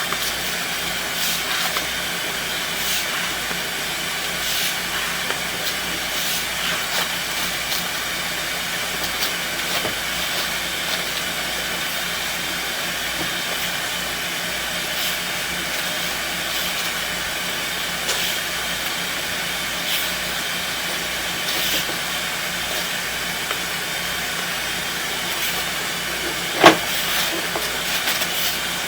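Steady hissing rush of water running through the sewer drain line, with scattered faint clicks and one sharp knock near the end.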